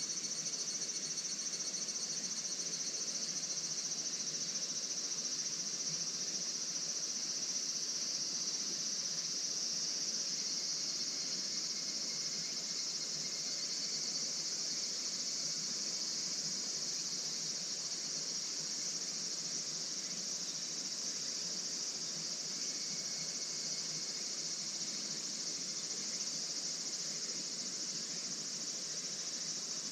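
A steady, high-pitched chorus of insects, like crickets, singing continuously.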